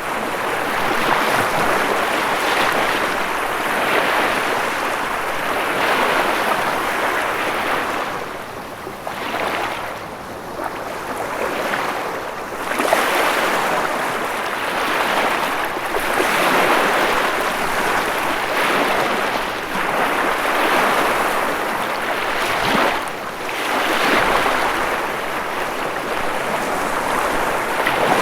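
Ocean waves breaking and washing on the shore in a continuous rush that swells and eases every few seconds, dipping briefly twice.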